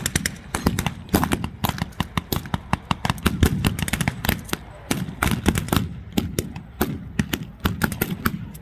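Battle-reenactment gunfire with blanks: many shots at irregular intervals from several weapons, with quick runs of automatic fire mixed among single shots.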